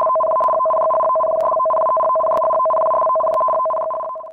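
Electronic alert tone sounding for a tsunami warning: two steady pitches held together, loud and unbroken, with faint ticks about once a second, fading out near the end.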